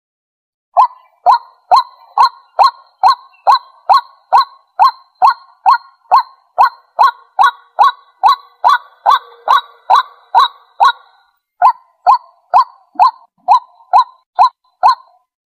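White-breasted waterhen calling: a loud, evenly repeated note about two times a second, with a short break about two-thirds of the way through. It is the bird's territorial call, used to lure rival waterhens.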